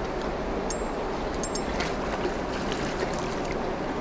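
Steady rush of creek water flowing over rocks, with a few faint short high ticks on top.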